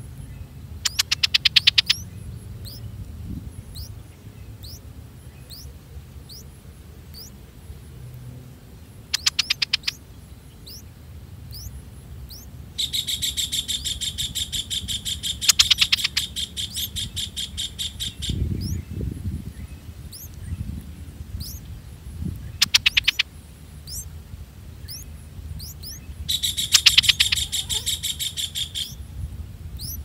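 Streak-eared bulbul nestlings begging: five bursts of rapid, high-pitched chirping. The longest lasts about five seconds, in the middle, while the chicks gape at the feeding parent.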